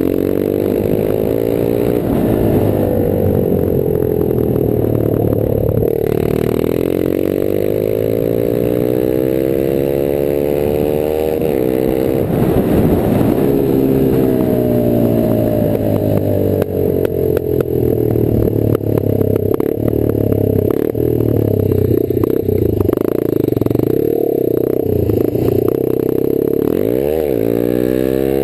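Rieju Marathon 125 AC's air-cooled single-cylinder four-stroke engine running through an open exhaust as the bike is ridden. Its pitch climbs and falls again and again as it accelerates and eases off, with a quick drop and rise near the end.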